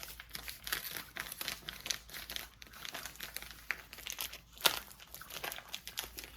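A vacuum-packed bag of ground coffee being handled and crinkled: a run of dry crackles and rustles, with one sharp, louder crackle about two-thirds of the way through.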